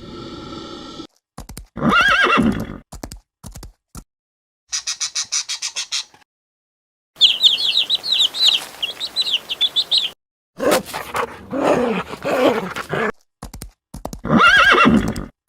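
Horses neighing and whinnying in a series of short separate clips with silent gaps between them, including a fast even pulsing call. A stretch of repeated high chirping calls falls in the middle.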